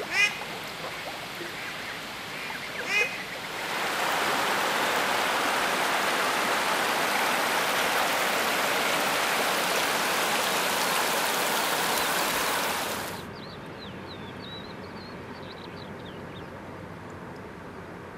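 Domestic geese honk twice over the flow of a water channel. Then a loud, steady rushing noise takes over for about nine seconds and cuts off suddenly, leaving a quieter background with faint small-bird chirps.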